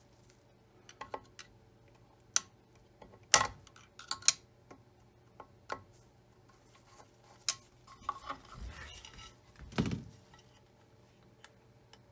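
A screwdriver clicking and scraping against the cast-aluminium bed of a Singer Featherweight 221 sewing machine, with scattered sharp metallic clicks and knocks. A short rustle and a heavier thump come near the end as the machine is handled.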